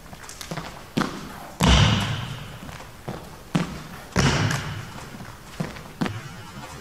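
Running footsteps and heavy lunge landings of a badminton player's court shoes on a sports hall floor, doing a shuttle run. Two heavy landing thuds about a second and a half and four seconds in stand out among lighter steps, each echoing briefly in the hall.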